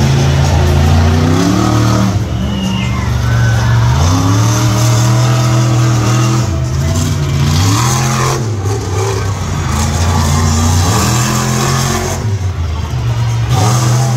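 Monster truck engine revving hard in repeated throttle bursts, its pitch climbing and dropping back about half a dozen times.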